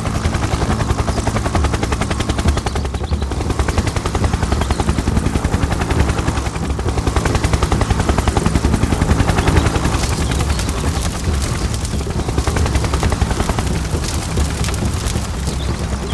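A small motor running steadily with a rapid, chattering beat.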